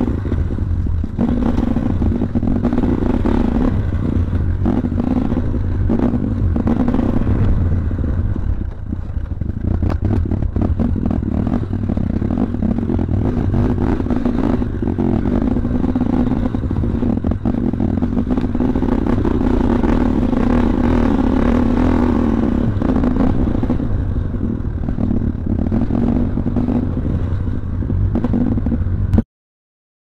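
Trail motorcycle engine running as the bike rides a rough dirt path, with a constant clattering and rattling from the bike jolting over the ground. The sound cuts off abruptly near the end.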